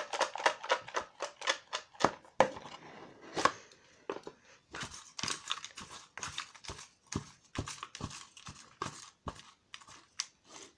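Folded paper raffle slips rustling and crinkling as a hand stirs them around in a cardboard box, in a quick, irregular run of sharp paper crackles and clicks.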